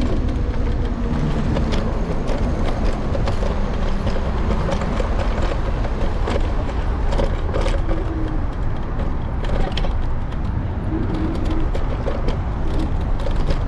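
Electric scooter ride heard from its handlebar-mounted camera: a steady low rumble of wind and road noise, with frequent sharp clicks and knocks from the scooter rattling as it rides.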